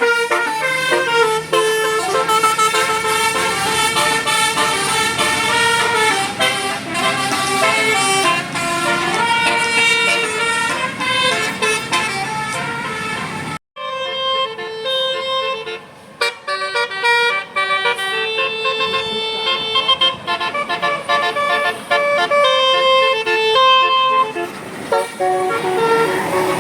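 Bus 'telolet basuri' musical air horn playing a tune as a string of held notes that step up and down in pitch. About halfway through, the sound cuts off for an instant and a second horn tune starts.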